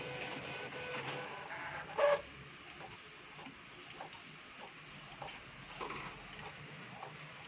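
Epson L1300 inkjet printer running with its cover off: a steady motor whine from the print-head carriage mechanism, one loud clunk about two seconds in, then quieter scattered clicks and ticks.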